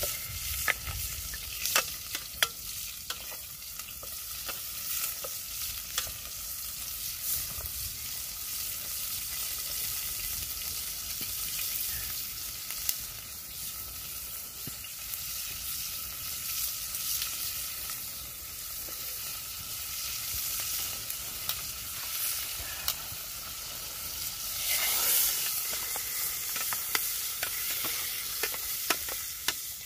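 Pork frying in a pot set in a wood campfire, sizzling steadily with the fire crackling in short sharp pops; the sizzle swells briefly about 25 seconds in.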